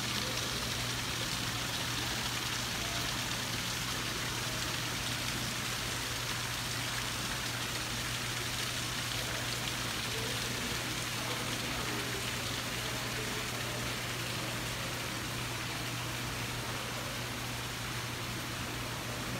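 A steady, even hiss with a low steady hum underneath, unchanging throughout.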